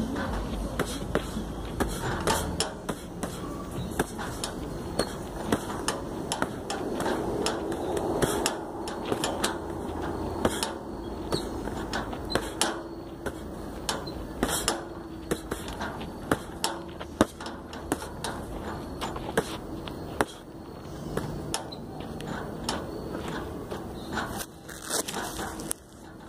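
Boxing-gloved punches landing on a hanging 3-litre plastic water bottle used as a homemade punching target: sharp smacks, irregularly spaced and often in quick combinations.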